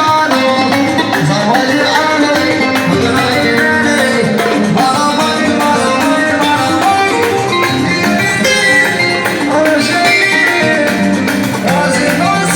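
Live raï band music at full volume: a busy melody of quick short notes over a steady accompaniment.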